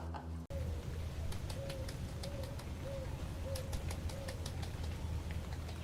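A bird giving short, arched calls over and over, roughly one every two-thirds of a second, with light clicks and a steady low hum behind them.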